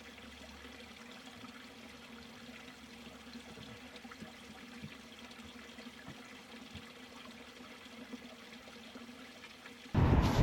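Faint steady trickle of running water with a low hum beneath it; a sudden loud rushing noise cuts in near the end.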